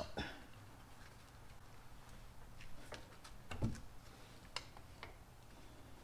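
Faint, scattered metallic clicks and taps as old brake pads are worked loose and pulled out of a front brake caliper, with one louder clunk a little past halfway.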